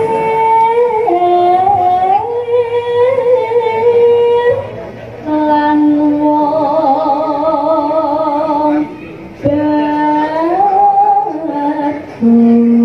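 A sinden, a female Javanese vocalist, singing long, drawn-out phrases with wavering vibrato on the held notes, pausing briefly for breath about three times.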